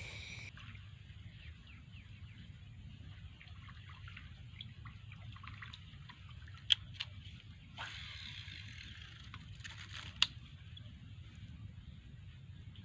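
Faint dripping and trickling water over a low steady rumble, with many small ticks. Two sharp clicks stand out, about halfway through and again near three-quarters of the way, with a short rush of noise shortly after the first.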